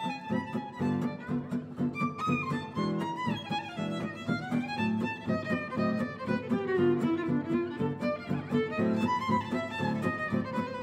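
Violin and acoustic guitar duo playing gypsy-jazz swing: the violin plays a sliding, bending melody over the guitar's steady strummed chord rhythm.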